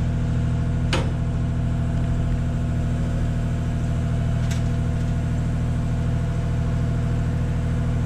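Engine of an aerial lift idling steadily, a low even hum. A sharp click comes about a second in and a fainter one midway.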